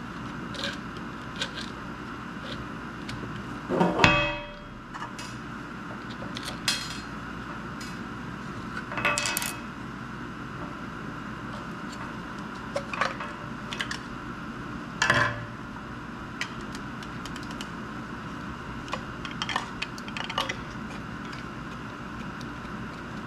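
Scattered clicks, taps and knocks as a Morimoto 4x6 LED headlight and its 3D-printed ABS bracket are handled and unbolted on a steel workbench. The loudest is a ringing clatter about four seconds in, with further knocks around nine and fifteen seconds. A steady hum runs underneath.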